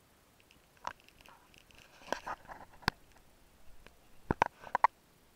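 Irregular sharp clicks and taps close to the microphone, scattered at first, then a quick run of louder ones near the end.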